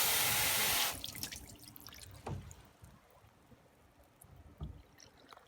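Water spraying from a garden hose nozzle on its rain setting, a steady hiss that stops about a second in, followed by a few faint drips of water running off.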